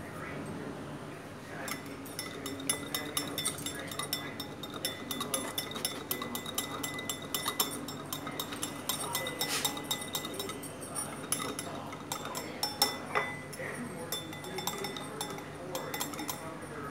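Wire whisk beating a thin oil-and-spice dressing in a bowl, its wires clinking rapidly and unevenly against the bowl's sides from about two seconds in.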